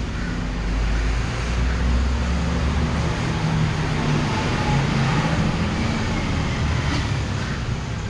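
Road traffic passing close by, with a heavy vehicle's low engine rumble. It swells about a second in and eases off slightly near the end.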